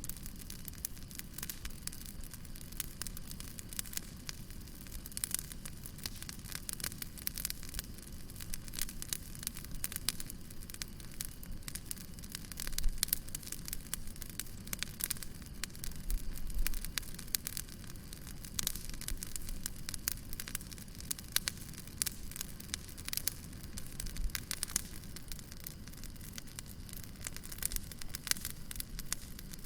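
Wood fire burning steadily, with a low rumble under dense, irregular crackles and pops, a few louder pops about halfway through.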